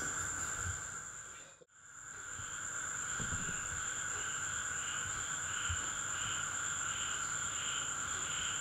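Insects chirping: a steady high trill with a softer chirp pulsing about three times every two seconds. The sound drops out briefly just under two seconds in.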